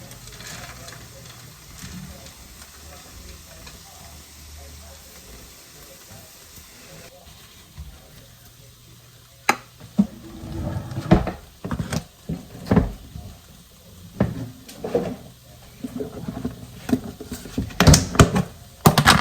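Frozen vegetables sizzling faintly in a pan on low heat, then from about halfway a run of utensil clatters and scrapes against the pan and dishes, the sharpest knocks near the end.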